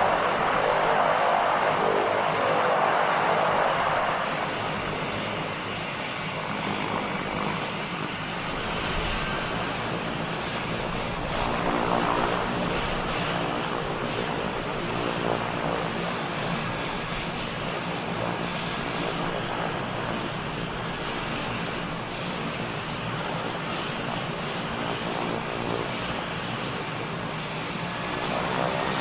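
Propeller airplane engine running continuously, a little louder in the first few seconds. A thin high whine over the engine rises in pitch about a quarter of the way in and again near the end.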